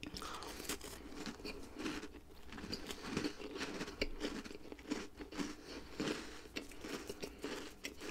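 A person biting and chewing a Turkish cookie, with many small, irregular crunches.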